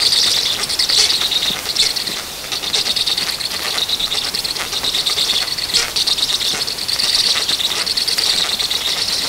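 Black stork nestlings begging all at once as a parent feeds them at the nest: a continuous high-pitched, rasping chorus with short sharp noises scattered through it.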